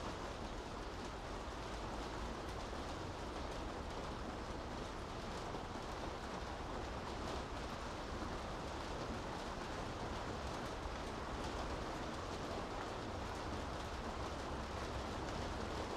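Steady rain falling on a city street: an even, constant hiss with a low rumble underneath.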